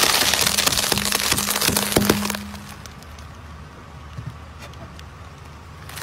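Dense crackling and snapping of brittle objects being crushed under a car tyre, over a low steady hum. After about two and a half seconds it thins to a few scattered cracks.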